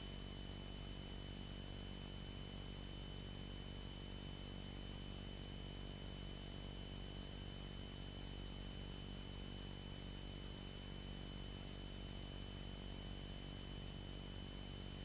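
Faint, steady hiss and hum of the cockpit audio feed in a single-engine Beechcraft Sundowner in cruise. The piston engine's drone comes through as an even low hum, with a thin steady high whine over it.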